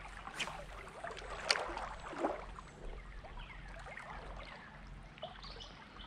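Creek water trickling, with a few short sharp splashes and ticks, the loudest about a second and a half in.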